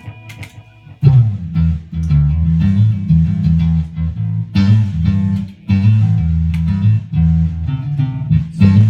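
Guitar music with a prominent low bass line: plucked bass notes held and changing every half second or so, starting about a second in.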